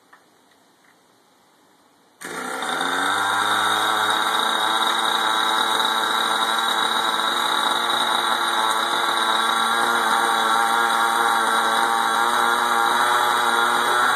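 O.S. .37 two-stroke nitro glow engine of an RC helicopter, spun by a hand-held electric starter, firing suddenly about two seconds in and then running at a steady idle.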